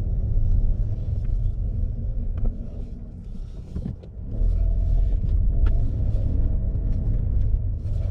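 A 2017 Audi A3 being driven, heard from inside the car: a steady low engine and road rumble that eases off around three seconds in and picks up again about four and a half seconds in, with a few light clicks.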